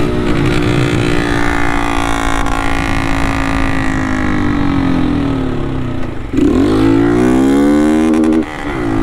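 Honda CG 160-family motorcycle's single-cylinder engine running through a modified Toruna exhaust, very loud and close to a bare pipe, heard from a helmet camera while riding. The engine note holds and sags as the throttle eases, then climbs hard after a shift about six seconds in, with another shift and rise near the end.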